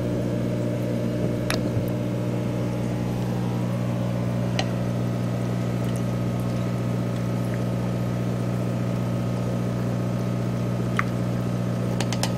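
Aquarium equipment running with a steady low electric hum, with a few faint clicks.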